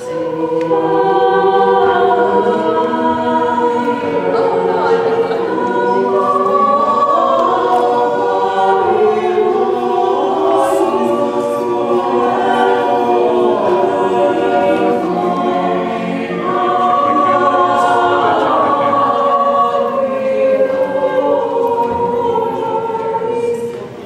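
A mixed-voice choir singing a cappella in sustained chords, phrase after phrase, with a brief easing between phrases about two-thirds of the way through.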